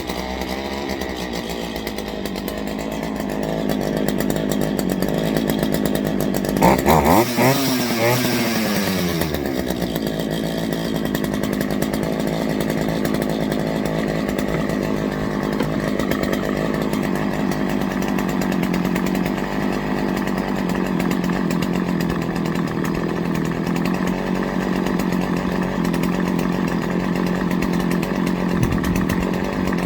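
Craftsman 40cc two-stroke chainsaw engine running after a carburettor adjustment for bogging down. It revs up once about seven seconds in, the revs falling back within a couple of seconds to a steady idle.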